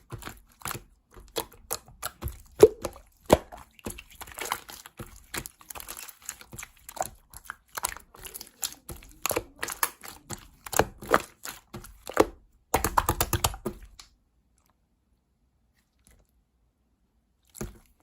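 Clear slime being squeezed and poked by hand, making quick irregular clicks and air-bubble pops. The sound stops about fourteen seconds in, with a couple more pops near the end.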